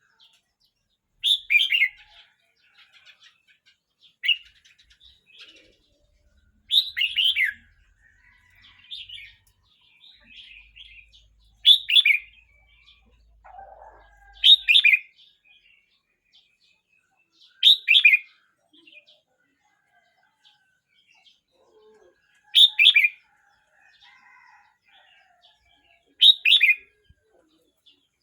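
A young red-whiskered bulbul, about thirteen months old, singing: about eight short, loud warbled phrases repeated every few seconds, with softer chirps in between.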